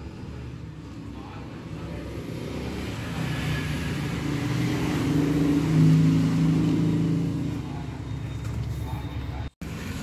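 A motor vehicle engine running, its low hum swelling to a peak about six seconds in and then fading. It cuts off suddenly near the end.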